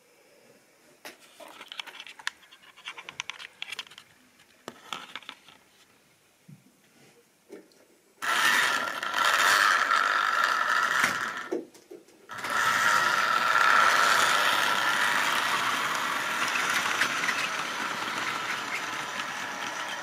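Model train running close by: the locomotive's small electric motor hum and the wheels rattling along the sectional track, loud from about eight seconds in, with a brief break near twelve seconds, then slowly fading. Before that, only light clicks and ticks.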